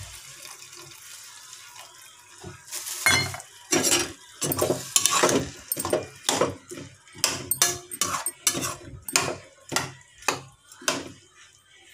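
Water poured into a pan of frying potatoes and cauliflower, a soft hiss at first. From about three seconds in, a spatula scrapes and knocks against the kadai again and again as the curry is stirred.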